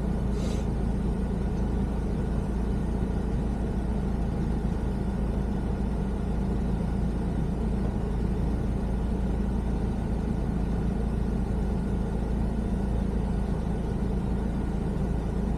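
Steady car cabin noise while driving: a low engine and road rumble, with a short hiss about half a second in.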